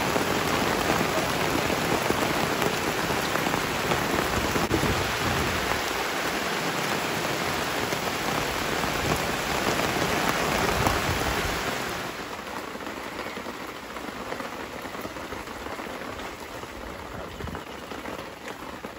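Heavy rain pouring onto waterlogged ground and leafy plants: a dense, steady hiss. About twelve seconds in it drops to a quieter, softer patter.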